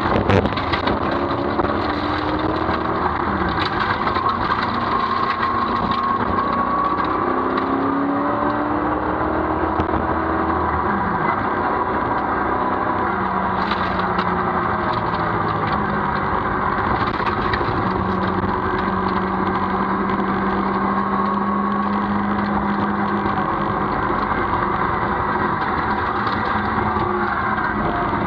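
Rover SD1 rally car's V8 engine heard from inside the cabin at speed, its revs rising and falling, over steady road and tyre noise. A few short knocks near the start and about halfway through.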